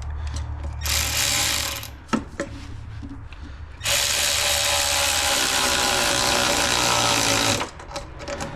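Handheld power driver running in two runs, a short one and then a longer steady one of about four seconds, tightening a fastener on the intercooler piping.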